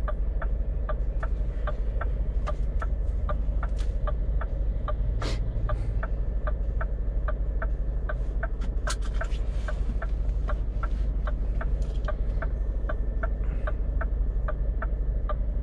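Flasher relay of a Scania truck ticking evenly, about three clicks a second, as the turn signals or hazard lights blink, over the steady low running of the diesel engine heard inside the cab.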